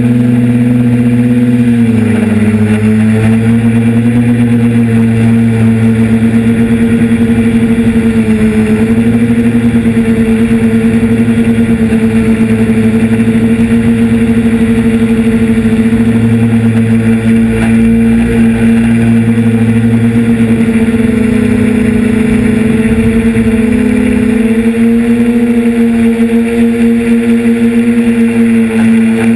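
Electric motors and propellers of a radio-controlled aircraft, heard up close from the camera it carries, running in a steady, loud buzzing hum. The pitch holds mostly level, dipping and wavering briefly a few times as the throttle changes.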